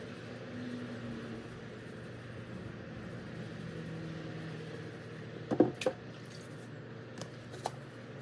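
Kitchen handling noises over a steady low hum: a quick cluster of knocks about five and a half seconds in, the loudest sound, then two lighter clicks near the end.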